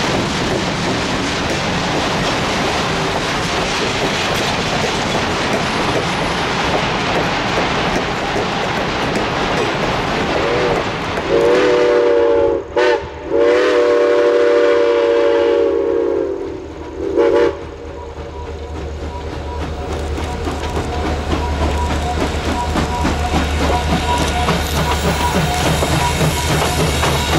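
Passenger cars of an excursion train rolling past, wheels clicking over the rail joints. Then a steam locomotive's chime whistle sounds in several blasts, one of them long, as the Baldwin 4-6-2 light Pacific approaches with a low steady rumble building toward the end.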